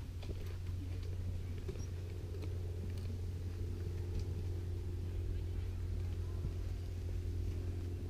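A steady low mechanical hum, even and unchanging, with a few faint scattered clicks over it.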